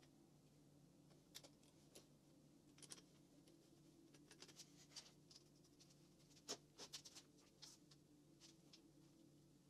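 Faint scattered clicks and light metallic taps of small engine parts being handled and fitted by hand, the loudest about six and a half seconds in, over a steady low hum.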